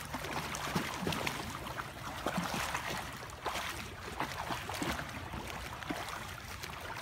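Water splashing and sloshing from a swimmer's freestyle arm strokes and kick in a pool, an irregular run of small splashes.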